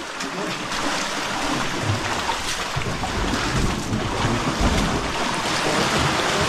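Steady rushing noise of wind and sea water, with wind buffeting the microphone.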